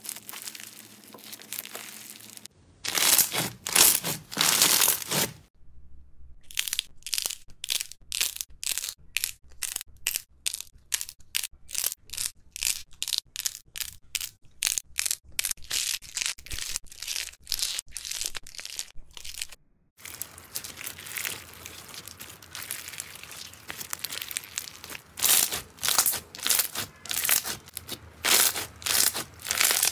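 Foam-bead slime and soft clay being stretched, squeezed and pressed by hand, crackling and popping. Through the middle the pops come quick and even, about three a second, and there are louder bursts of crackling a few seconds in and again near the end.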